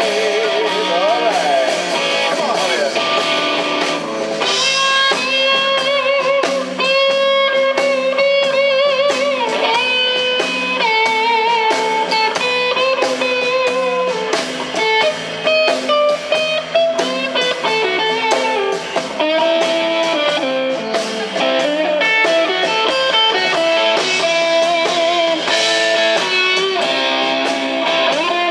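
Live blues band: a Telecaster-style electric guitar plays a lead solo of long held notes, shaken with vibrato and bent up and down, over a steady drum and cymbal beat.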